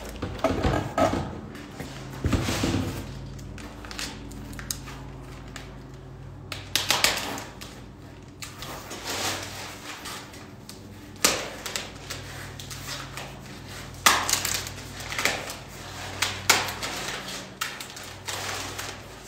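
Packing tape being peeled off a cardboard sheet and a plastic-wrapped print, with crinkling plastic and cardboard handling: a run of irregular rustles, rips and scrapes, with a faint steady hum underneath.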